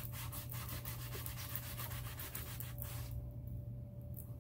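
A cloth rag rubbing thinned whitewash paint off a wooden cabinet door in quick repeated wiping strokes. The strokes pause about three seconds in and start again near the end.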